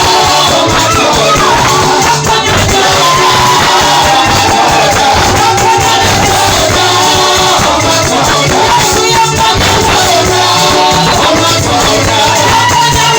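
Loud church praise music: voices singing over a full band with a steady beat and shakers.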